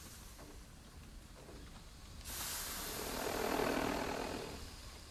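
A rushing noise that swells in about two seconds in, peaks, and dies away again.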